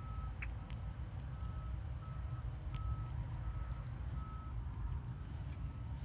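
Golf cart's reverse warning beeper sounding a steady high beep over and over, about once every 0.7 s, over a low rumble.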